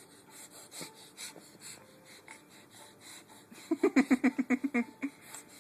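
A baby making a funny noise: a rapid stuttering run of about a dozen short voiced pulses over roughly a second and a half, past the middle, after some faint breathing.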